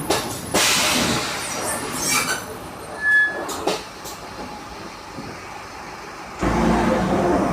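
Mercedes-Benz LO 916 bus with its OM924 LA four-cylinder diesel: a sudden burst of air hiss about half a second in, then a few knocks and a short beep over a quiet stretch. Near the end the engine suddenly comes in loud again.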